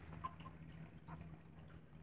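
Near silence: a faint steady low hum with a few soft clicks from hands handling a paperback book's pages.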